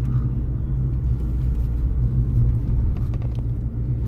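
Steady low rumble of a car on the move: engine and road noise at an even speed.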